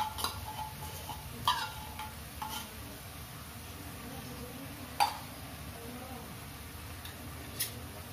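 A metal spoon scraping and clinking against a corned beef tin and an aluminium wok while canned corned beef is scooped out: about five short, sharp clinks, the loudest about five seconds in.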